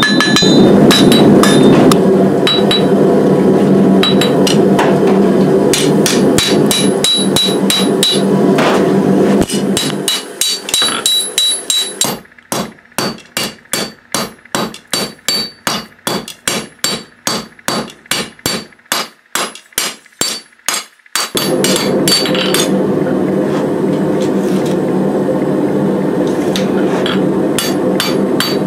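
Hand hammer forging a red-hot O1 high-carbon steel knife blade on an anvil: a long run of ringing blows, about two to three a second. A steady rush from the gas forge runs under the blows for the first third, drops out so the strikes ring alone, and comes back about three-quarters of the way through.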